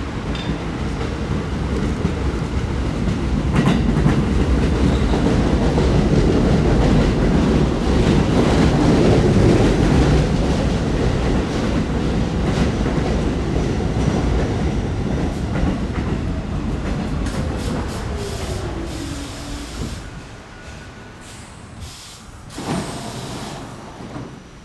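Staten Island Railway R44 subway train pulling into the station: a rumble and wheel clatter that build, then fade as it brakes, with a falling whine as it slows to a stop. Near the end there is a short burst of noise as the doors open.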